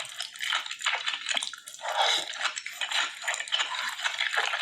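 Wet, splashy food sounds in a run of irregular bursts, with light clinks of cutlery on dishes.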